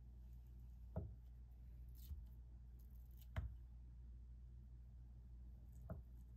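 Kitchen knife slicing through a block of canned luncheon meat on a wooden cutting board, the blade knocking faintly on the board three times, a couple of seconds apart.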